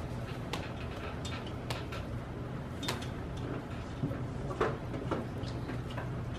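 Scattered light clicks and knocks of objects being handled and set down, several over a few seconds, over a steady low room hum.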